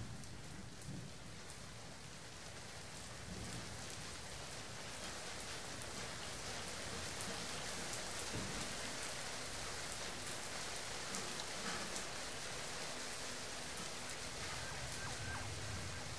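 Steady rain: an even hiss with scattered ticks of drops.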